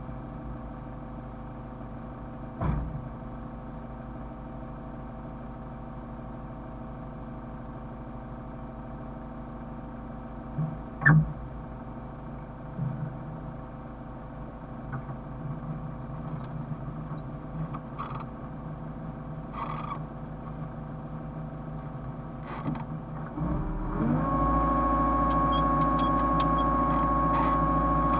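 Hyundai excavator's diesel engine idling steadily, with a couple of sharp clunks. Near the end the engine speeds up and holds at a higher, louder pitch with a steady whine.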